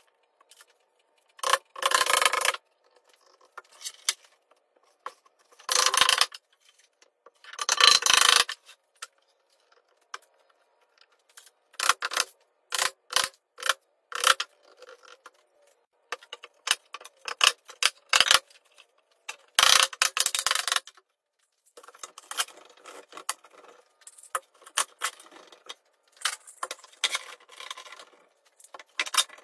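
Glue-up sounds: several loud rough noises about a second long, then a run of sharp taps from a rubber mallet on a wooden strip, then metal clicking and rattling as steel bar clamps are set and tightened near the end.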